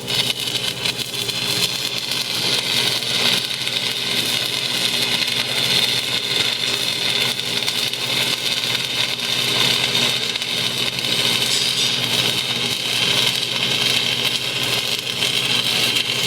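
Stick (shielded metal) arc welding an electrode bead: a continuous, steady crackling of the arc, with a low hum beneath it throughout.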